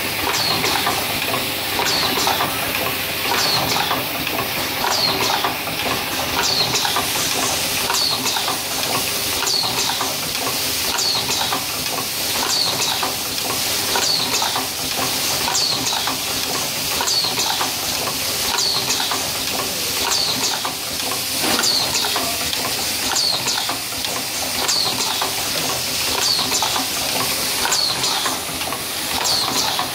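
Automatic silver contact riveting machine running: a steady rattle of small metal parts and mechanism, with a short hissing click repeating about once a second as the machine cycles.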